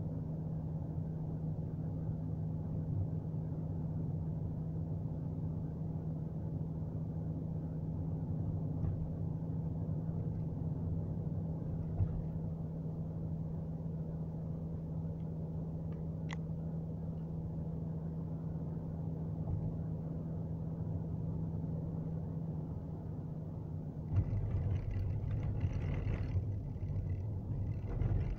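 Car driving at road speed, heard from inside the cabin: a steady low drone of engine and tyre noise with a constant hum. About four seconds before the end the noise turns louder and rougher, with a few thumps.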